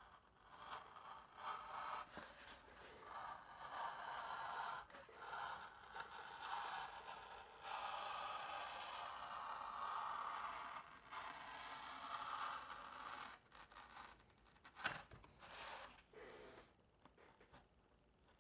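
A hobby knife score-cutting along water-resistant paper-faced foam board: a long, steady scraping and tearing of the blade through the paper and foam, with a few short breaks. A single sharp click comes about fifteen seconds in.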